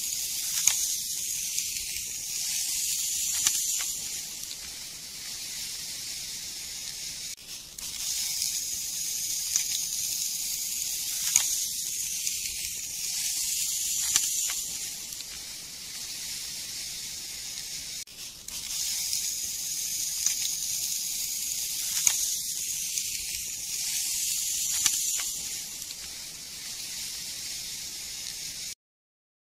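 Plastic toy shovel scraping and scooping through fine dry sand: a steady gritty hiss that swells and eases, the same stretch of sound repeating about every ten and a half seconds.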